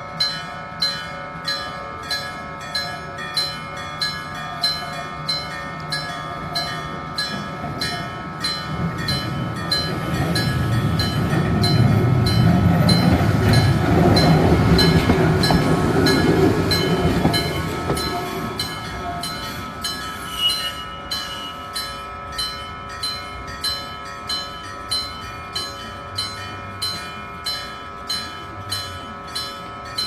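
Japanese level-crossing warning bell dinging evenly, about three dings every two seconds. Midway a Randen tram car (Mo-Bo 27) passes through the crossing: its wheels and motors rumble, growing louder from about nine seconds in and fading away by about nineteen seconds.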